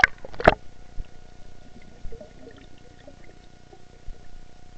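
Two quick splashes of water about half a second apart, followed by faint scattered water sounds.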